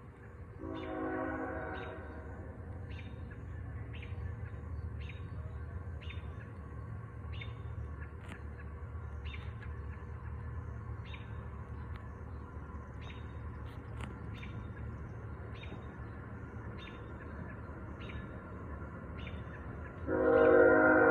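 Train passing at a distance: a steady low rumble with faint clicks about once a second. A train horn sounds a chord twice, briefly about a second in and again, louder, near the end.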